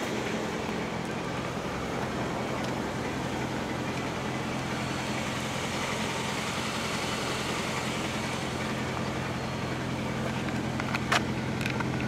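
Steady low mechanical hum with a few constant low tones, and one sharp click about eleven seconds in.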